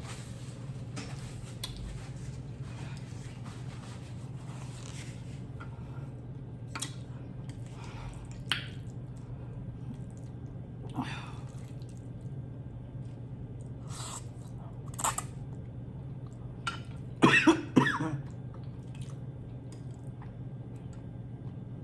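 Close-miked eating of spicy Buldak carbonara ramen noodles: scattered small chewing and mouth sounds and light clicks over a steady low hum. About seventeen seconds in there is a brief cough-like vocal sound, the loudest thing in the stretch.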